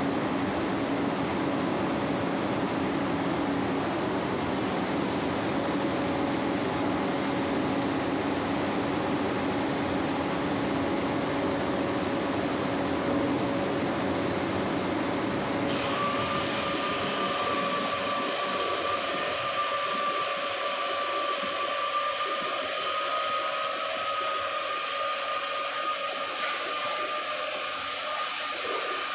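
Industrial paint spray booth running: a steady machine hum under a broad rush of moving air. About halfway through, the rushing thins out and a steady higher whine stands out.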